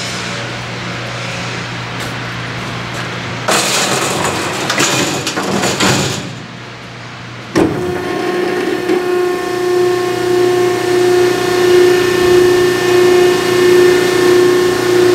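A metal clatter lasting a couple of seconds, then a sharp clunk as the vertical baler's hydraulic power pack (15 hp three-phase electric motor driving the pump) starts, followed by a steady whine that pulses about twice a second as the pump works under load.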